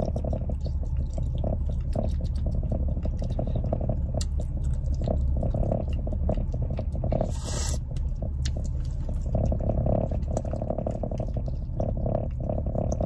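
A person chewing chewy gummy candy with snap-in implant dentures: wet mouth sounds and small clicks, close to the microphone, over a steady low hum. A short hiss just past halfway.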